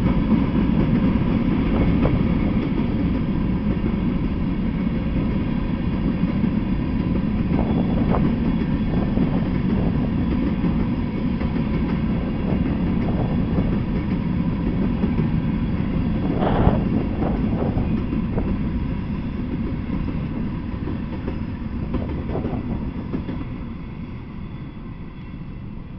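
Freight train of covered hopper cars rolling past: a steady rumble of steel wheels on rail with a few sharp knocks, one loud one a little past halfway. The rumble fades near the end as the last cars go by.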